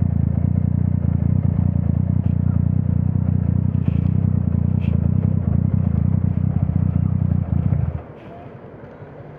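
Yamaha MT-09's three-cylinder engine with an Akrapovič exhaust running at a steady, even note, then cutting off suddenly near the end, which sounds like it being switched off.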